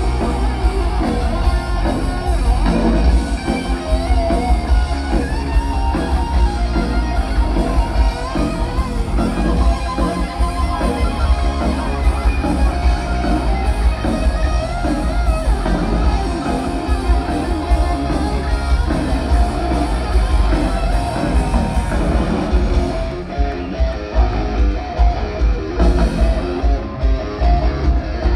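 Live rock band playing loudly through stage speakers: electric guitars over bass and drums, heard from the audience.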